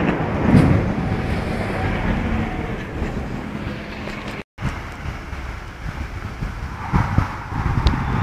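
Jet aircraft engine noise from display jets flying overhead, a steady rushing sound that fades over the first few seconds. It cuts out for an instant about halfway, then carries on quieter, with a few short knocks near the end.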